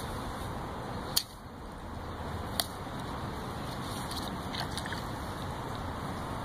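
Steady outdoor background noise with wind on the microphone, broken by two sharp clicks about a second and a half apart, the first about a second in.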